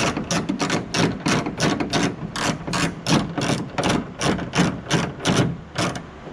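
Socket ratchet clicking steadily, about four clicks a second, as it backs out the second mounting bolt of a car's interior door handle. The clicking stops briefly near the end.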